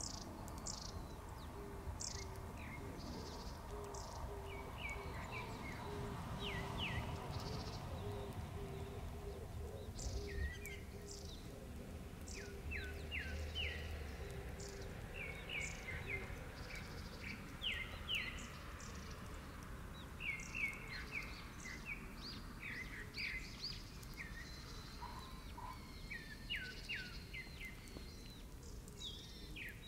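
Outdoor nature ambience: birds giving many short, quick downward-sliding chirps throughout, thickest in the second half, with a low note pulsing about twice a second through the first half over a faint low rumble.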